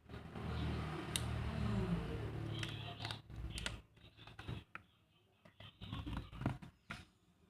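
Paper and stationery being handled at a desk: a few seconds of rubbing and rustling, then scattered small clicks and taps.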